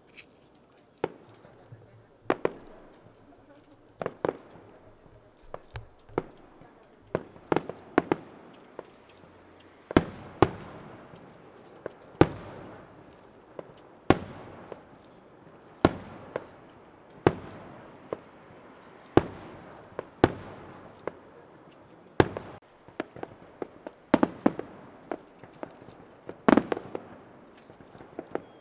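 Aerial firework shells bursting overhead in a steady series of sharp bangs, one every second or two. Each bang is followed by an echoing tail.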